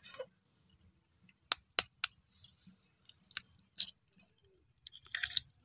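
Eggs being cracked open with a knife over stainless steel bowls: a few separate sharp taps and clicks of blade on shell and steel, then a short crackling cluster near the end as a shell breaks apart.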